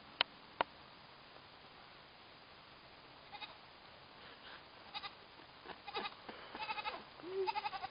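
A young goat kid bleating: a series of short, high-pitched bleats that come more and more often, some quavering rapidly. Two sharp clicks come just at the start.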